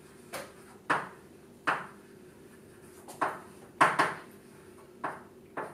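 Chalk tapping and scratching on a blackboard as words are written: about seven sharp taps at irregular intervals, the loudest about four seconds in, over a faint steady hum.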